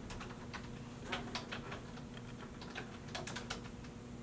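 Keys being typed on a computer keyboard: a run of light, irregular clicks as an address is entered.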